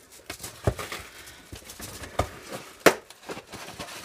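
Mailed package being opened by hand: scattered handling clicks and taps from the packaging, the sharpest nearly three seconds in.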